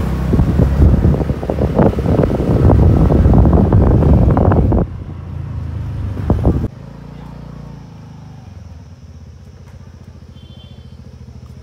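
Motorcycle riding along a street: wind buffeting the microphone over the engine running. About seven seconds in it cuts suddenly to a much quieter, steady low engine idle.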